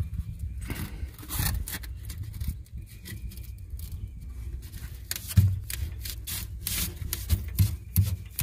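Rigid foam board being cut, a run of irregular rubbing and scraping strokes.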